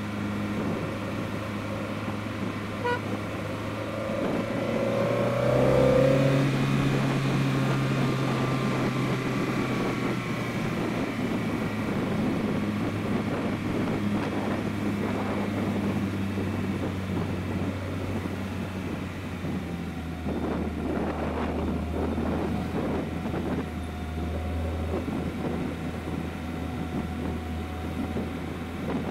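BMW E30 320is's S14 2.0-litre four-cylinder engine, fitted with Schrick cams, a carbon airbox and an Evo2 muffler, running under way. It rises louder and higher about five seconds in, holds steady, then drops lower from about twenty seconds in, with tyre and road noise underneath.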